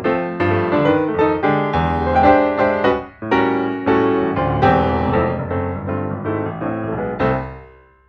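Piano music: chords and a melody played on a keyboard, with a brief break about three seconds in, dying away near the end.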